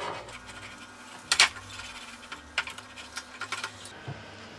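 Pastry brush dabbing oil into silicone baking moulds, with scattered light clicks and ticks and one sharper click about a second and a half in.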